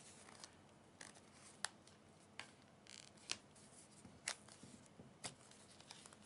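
Orzly Duo Armor two-piece phone case (TPU inner with hard plastic shell) being prised apart and off an iPhone by hand: faint sharp plastic clicks about once a second, with a brief scrape about three seconds in.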